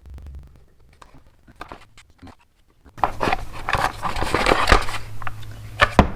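Spark plug being loosened from a Poulan Pro chainsaw's cylinder with a socket wrench: scattered small clicks, then from about halfway a dense run of rapid metal clicks and scraping with a couple of sharper knocks near the end.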